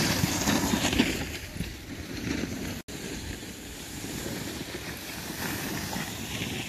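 Wind buffeting the microphone, a rough rushing noise that is loudest for the first second or so, then settles lower, with a brief drop-out about three seconds in.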